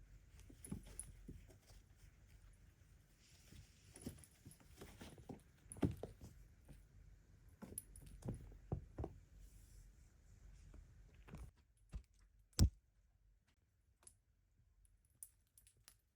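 Scattered soft knocks and clicks, denser in the first two thirds, then sparser, with one sharper knock a little past three quarters of the way in.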